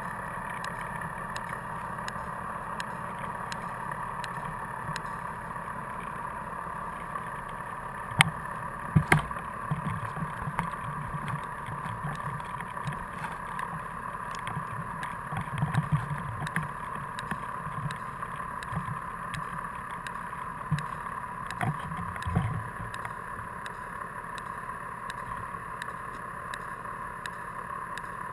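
Steady, muffled underwater noise picked up by a camera being lowered on a line with a descending device, with a few sharp knocks about 8 and 9 seconds in and dull low bumps later.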